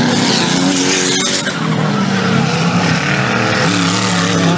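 Four-wheel-drive off-road race vehicles' engines revving, the pitch rising and falling, with bursts of rushing tyre-on-dirt noise near the start and again near the end.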